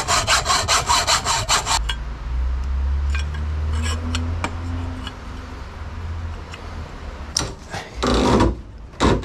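Hacksaw cutting through aluminium tubing in quick back-and-forth strokes, stopping about two seconds in. After that come light clicks and taps as the cut tube is handled, and short bursts of tarp fabric rustling near the end.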